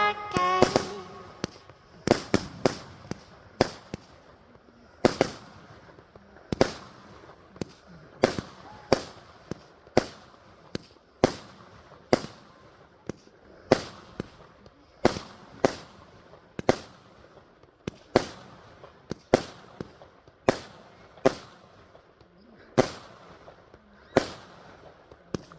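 Fireworks going off: a long run of single sharp bangs at irregular spacing, about one a second, each with a short fading echo.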